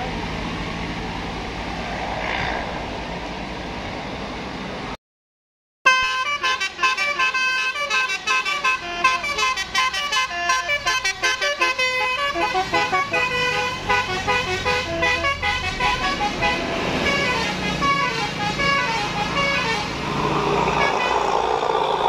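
A few seconds of road traffic and a heavy vehicle's engine, then a second of silence. After that a bus telolet horn plays a fast melody of short, bright, multi-note toots, Basuri-style, to the end.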